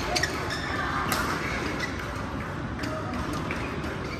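Badminton rally: sharp racket strikes on the shuttlecock, the clearest about a second in, among short squeaks of court shoes on the floor.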